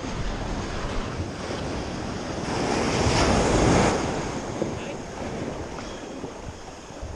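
Sea surf washing in, one wave building to a peak about three seconds in and subsiding, with wind buffeting the microphone.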